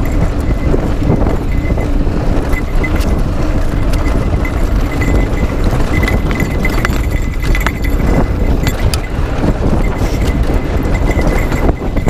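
Mountain bike running fast down a loose dirt trail: steady rumbling noise from the tyres and air rushing past the camera, with many small knocks and rattles from the bike over bumps.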